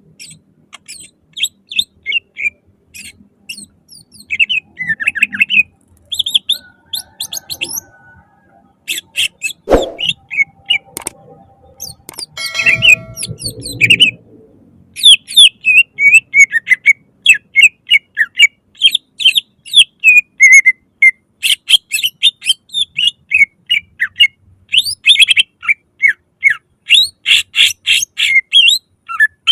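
Cucak ijo (green leafbird) singing in quick chirps, scattered at first and then a dense, nearly continuous string through the second half. A single knock comes about ten seconds in, and a short stretch of low rustling follows a couple of seconds later.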